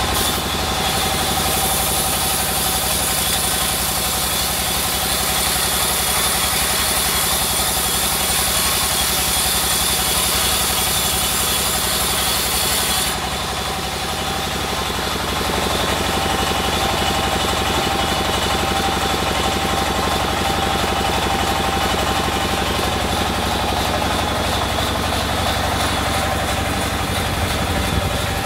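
Sawmill band saw running steadily while sawing through a rain tree log. A high hiss of the blade in the cut drops away about halfway through, and the saw keeps running after it.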